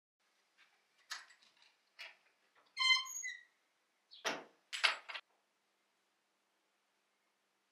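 Wooden chest's lid squeaking on its hinges, a short pitched creak, after a few light knocks. It is followed by a dull thump and rustling as things inside the chest are handled, all over a little after five seconds in.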